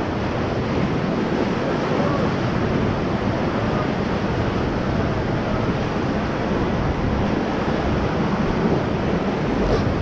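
Whitewater rapids rushing steadily around an inflatable raft, a dense, even wash of churning water.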